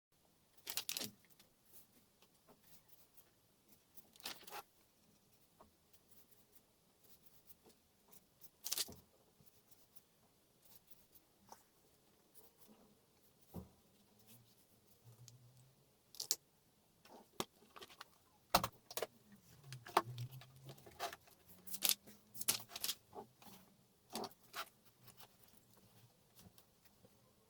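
Small hard objects being handled: scattered light clicks, taps and rattles at irregular intervals, coming thicker in the second half.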